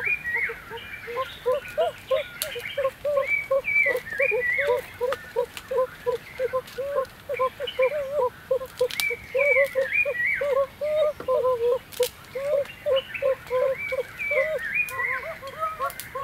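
Animal calls: a steady string of short rising-and-falling calls, about four a second, joined every few seconds by clusters of higher calls.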